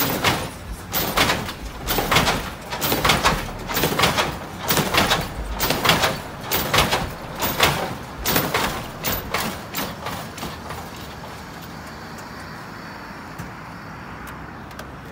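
A lowrider's hydraulic suspension being worked on the switches: a run of sharp bursts of hydraulic pump and dump noise with suspension clunks, one to two a second, as the car hops. The bursts stop about ten seconds in, leaving a steady low background.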